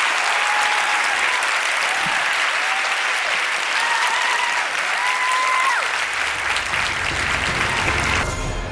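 Audience applauding steadily after a talk. A low music bed comes in about six seconds in, and the applause cuts off abruptly near the end.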